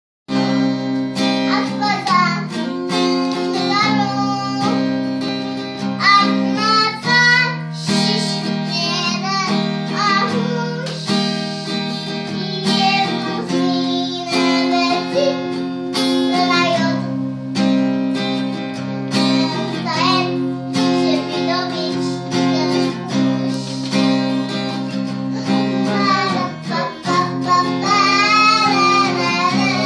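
A young girl and a man singing an Armenian song together, accompanied by a strummed acoustic guitar.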